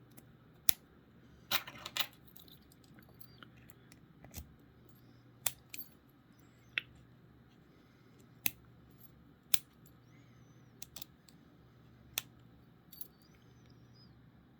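Sharp metallic clicks from a small 21mm padlock and its lockpicking tools being handled once the lock has been picked: about a dozen single clicks at irregular intervals, with a short rattle of clicks about two seconds in.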